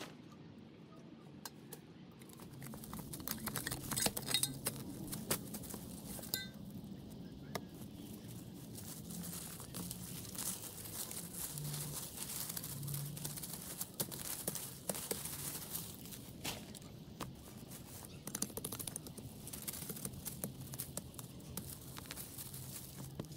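Dry leaves and plant debris crackling and rustling as a flower bed is cleared, with many small snaps and clicks.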